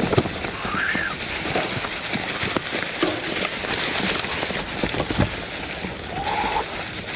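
Mountain bike riding down a leaf-covered trail: tyres crackling through the leaves, with knocks and rattles from bumps.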